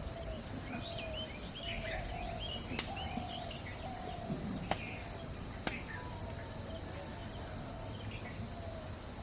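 Small birds chirping and twittering, with a lower short falling call repeating about once a second. Three sharp clicks stand out in the middle.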